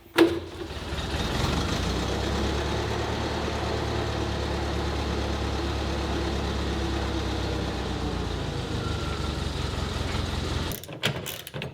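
A steady low mechanical rumble for about ten seconds, cutting off suddenly near the end, after a sharp click right at the start.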